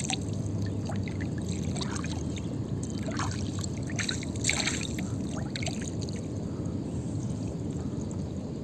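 Water splashing and trickling off a fishing gill net as it is hauled by hand out of a lake into a wooden canoe, with a few louder splashes, the biggest about four and a half seconds in, over a steady low background noise.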